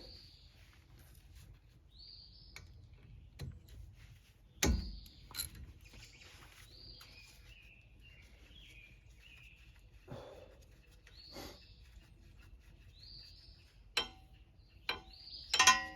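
Songbirds chirping, short high calls repeating every couple of seconds, over faint outdoor background. Now and then a sharp knock or clink, the loudest a dull thump about five seconds in, and a metallic clatter with a brief ring near the end.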